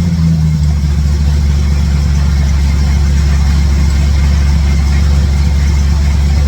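1967 Chevrolet C10 pickup's V8 idling, its speed dropping and settling in the first second, then running steadily. It sounds like it is firing on all eight cylinders, with no major exhaust leak to the owner's ear.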